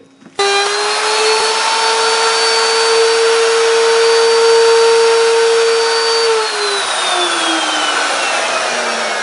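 Handheld wood router switching on and running with a steady high whine. About six seconds in it is switched off and the pitch falls steadily as the motor spins down.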